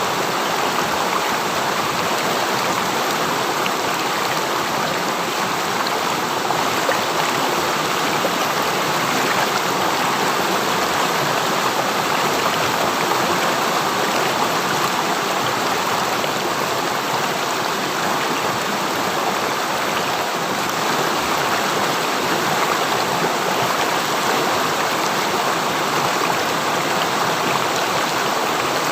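River water flowing over rocks in a steady, continuous rush.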